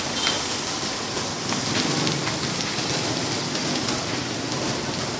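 Skewered meat sizzling over a charcoal grill, a steady hiss, with water squirted from a plastic bottle onto the hot grill near the start.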